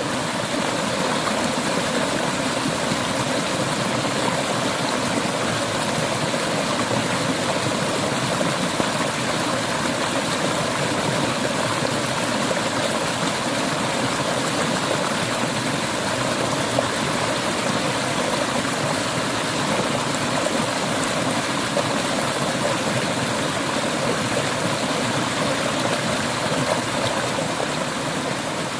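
Clear river water flowing steadily, a continuous even rush.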